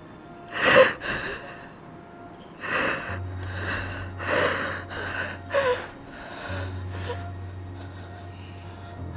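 A man's acted crying: a series of about eight gasping, sobbing breaths and sniffs as he plays a character in distress.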